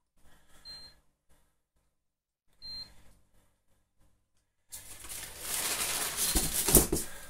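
Two short high beeps about two seconds apart, then a loud rustling and crinkling of shipping packaging being handled, building to a peak near the end.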